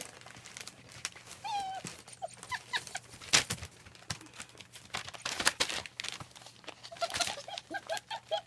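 German Shepherd puppies whimpering in short high squeaks, with a quick run of squeaks near the end. A few sharp clicks or knocks are mixed in, the loudest about a third of the way through.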